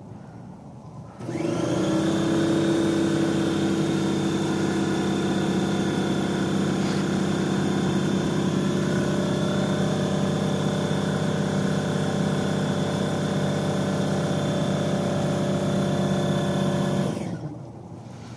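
Electric motor of a direct-drive drill press switched on about a second in, running at a steady speed with a high whine, then switched off near the end and winding down.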